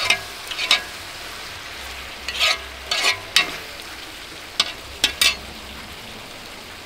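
Large metal spoon stirring pork stew in a big metal pot, scraping and knocking against the pot in irregular strokes over steady sizzling. The stirring strokes stop about five and a half seconds in, leaving only the sizzle.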